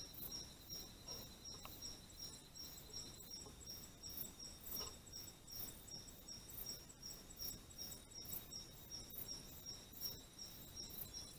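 Faint night insect chorus: a regular high-pitched chirp repeating evenly, over a thin steady high tone, with a few faint clicks.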